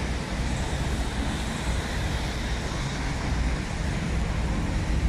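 Steady traffic noise from a jam of cars with engines running, on a wet street, with a low wind rumble on the microphone.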